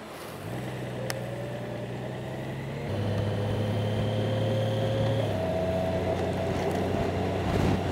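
Honda Gold Wing's flat-six engine pulling away and accelerating through the gears, with a faint whine that rises in pitch and jumps at each shift, about three and five seconds in. The engine gets louder from about three seconds in.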